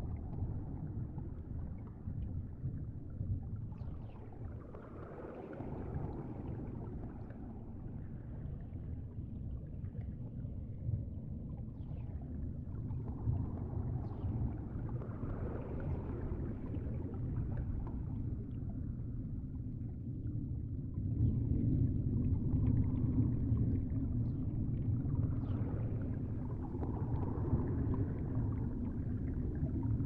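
Steady low rumble of moving aquarium water, with slow swells rising and falling every several seconds. It grows a little louder about two-thirds of the way through.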